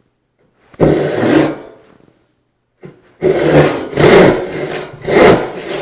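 Hand rip saw starting a cut in soft pine, its teeth rasping through the wood. There is one stroke about a second in, a pause, then a steady run of strokes at about one a second.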